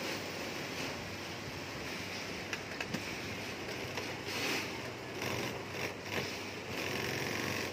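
SunStar industrial sewing machine stitching backpack fabric in short runs, a few seconds apart, over a steady low workshop hum, with a few light clicks from handling the fabric.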